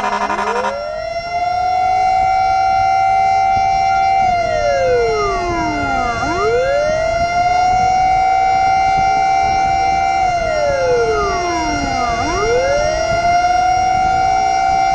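Fire truck siren sounding a slow wail: each cycle rises quickly, holds high for a few seconds, then slides down, repeating about every six seconds over a steady tone. A horn blast ends less than a second in.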